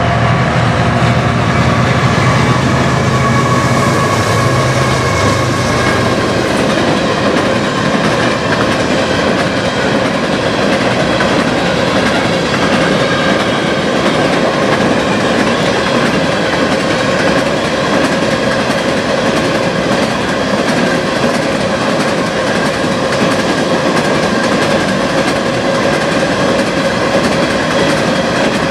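A CN freight train passes at speed. The drone of its GE diesel locomotives (ET44AC and ES44AC) fades over the first few seconds, and then a long string of empty covered hopper cars rolls by with a steady wheel rumble and clatter.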